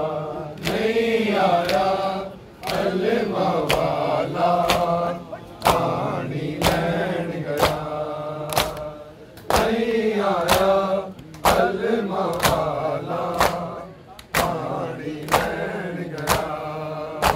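Men chanting a Shia noha (mourning lament) in chorus, with sharp chest-beating slaps of matam landing in time about once a second.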